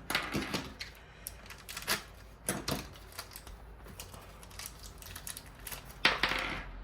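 Small hard plastic Beyblade parts clicking and clattering as they are handled for assembly, with a louder clatter about six seconds in.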